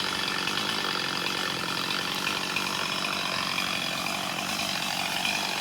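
Chainsaw running steadily, cutting up a tree limb.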